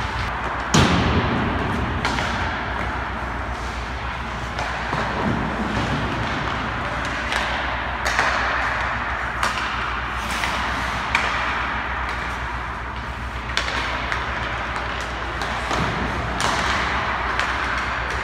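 Ice hockey practice sounds: skates scraping and carving the ice, with sharp knocks of pucks and sticks, the loudest a hard thump about a second in and several more scattered through. A steady low hum runs underneath.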